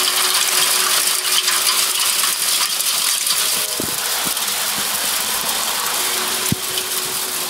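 Soft hail (graupel) pelting down, a dense, steady hiss of countless tiny ice-pellet hits rattling on surfaces, under a faint steady hum. A couple of sharper knocks come about four and six and a half seconds in.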